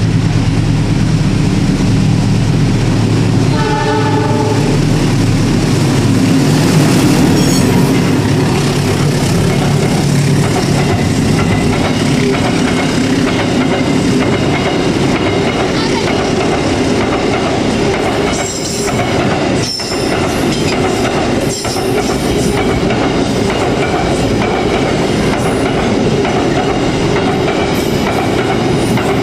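Diesel locomotive hauling a long container freight train past at speed, its engine running low at first, with a short horn blast about four seconds in. The container wagons then roll past steadily.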